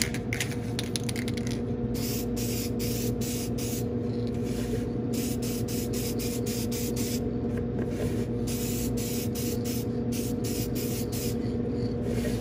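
Krylon matte sealer aerosol can spraying in many short hissing pulses with brief pauses between runs, over a steady low hum.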